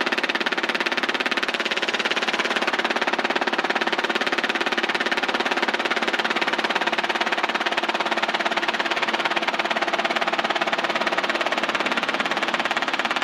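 Robinson R22 Beta II helicopter in flight, heard as cabin noise through the headset intercom: a steady engine-and-rotor drone with a fast, even pulse, as the helicopter descends on approach.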